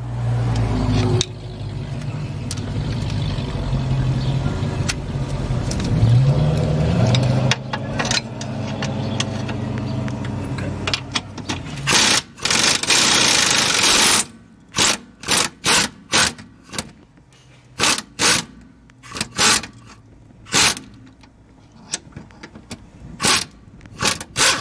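Impact wrench hammering on a rear lower control arm bolt: one long run of about two seconds, then a string of short trigger bursts. Before it, a steady mechanical hum with a low drone runs for about ten seconds.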